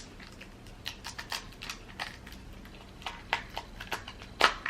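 Scattered light clicks and taps of food and utensils being handled on a table, with one louder knock near the end.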